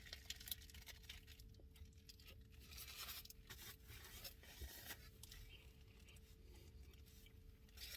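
Near silence: room tone with a faint steady hum and scattered faint clicks and rustles.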